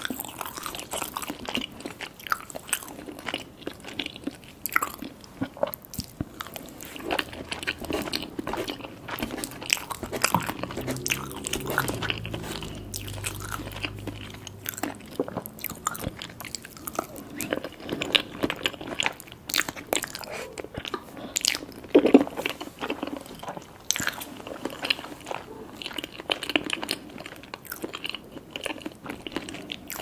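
Close-miked eating: a person biting and chewing mouthfuls of gravy-covered poutine fries, with many small mouth clicks throughout.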